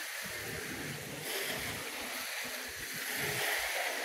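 Small lake waves washing at the shore, with wind gusting on the microphone in uneven low rumbles.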